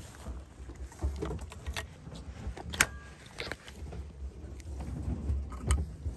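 Metallic clicks and snaps from a side-by-side double-barrel shotgun's break action being handled and opened. The sharpest click, about three seconds in, has a brief metallic ring. A low rumble runs underneath.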